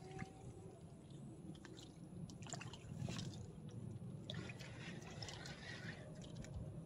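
A small hooked tilapia splashing at the pond's surface as it is reeled in and lifted out, in two spells of light splashing, about two to three seconds in and again from about four to six seconds.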